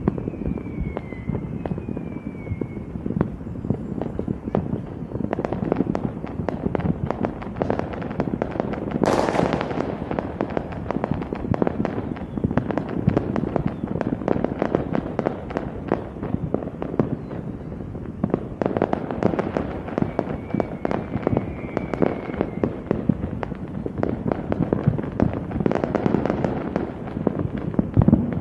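Fireworks going off in quick succession, a dense run of bangs and crackles with a louder, sharper burst about nine seconds in.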